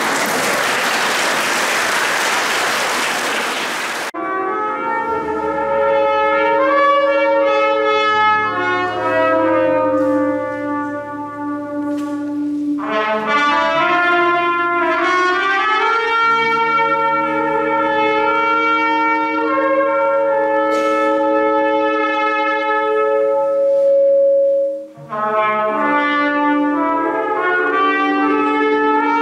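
About four seconds of applause that cuts off abruptly. Then a trumpet plays slow, held notes over a choir singing sustained chords, with a low bass note held underneath.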